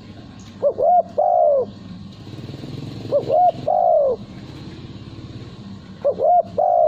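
Spotted dove cooing: three phrases about two and a half seconds apart, each two short notes followed by a longer, drawn-out falling coo.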